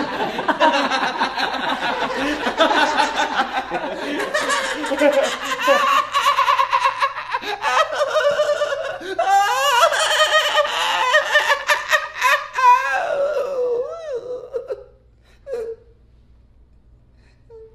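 Men laughing hard in long, loud fits, the laughter dying away about fifteen seconds in.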